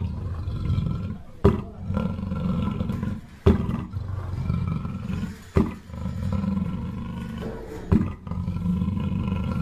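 Black panther (melanistic big cat) calling in a long series of deep roars, with a fresh, sharp-starting call about every two seconds.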